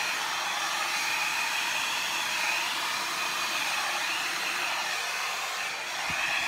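Hand-held blow dryer running steadily, blowing air across wet acrylic paint on a canvas to spread it. It dips briefly near the end, then comes back.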